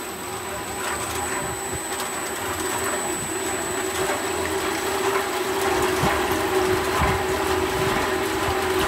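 The paddle agitator of a PMC-100L liquid homogenizing mixer running, its geared drive motor whirring with a steady hum while the blades stir liquid in the stainless tank. The sound grows gradually louder.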